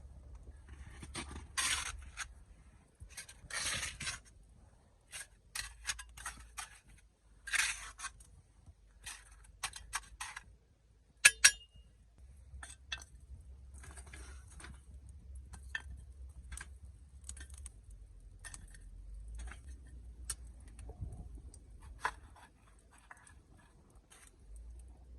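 Irregular scrapes, rustles and clicks of camp gear being handled, with one sharp metallic clink that rings briefly about eleven seconds in.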